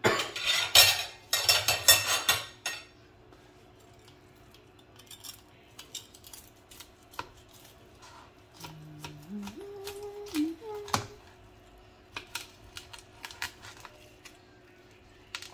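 Knife and fork scraping and clinking on a plate and a plastic cutting board while slicing crispy-skinned pork belly, with loud crackly scraping in the first couple of seconds. Scattered sharp clicks follow as the knife cuts through the crisp skin.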